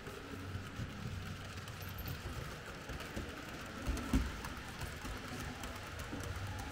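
Märklin H0 model train running on the layout's track: a steady rolling rattle with many small clicks and a low hum, and a louder knock about four seconds in.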